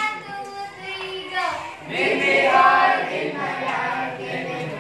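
A group of young female voices singing a praise chorus together, getting louder about two seconds in.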